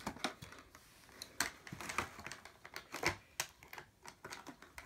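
Light, irregular plastic clicks and rattles: small hard-plastic toy pieces knocking against each other and against a clear plastic blister tray as it is handled and set down.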